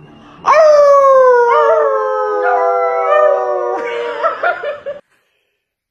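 A man howls one long, slowly falling note and small dogs howl along with him. About four seconds in it breaks up into laughter, and the sound stops about a second later.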